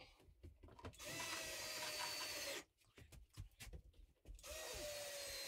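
Cordless drill running in two bursts of about a second and a half, driving into the wooden wall boards under load; its pitch sags a little toward the end of each run.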